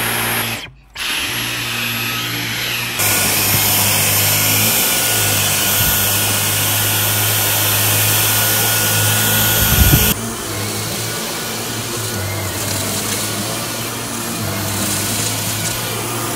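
Dyson V15 Detect cordless stick vacuum running: a steady motor hum with rushing air. It drops out for a moment just under a second in, runs louder and airier from about three seconds to ten, ending with a short knock, then runs steadily with its brush head on carpet.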